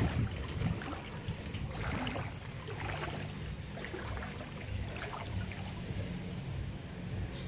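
Muddy floodwater sloshing and lapping in a flooded yard, with a low steady hum underneath.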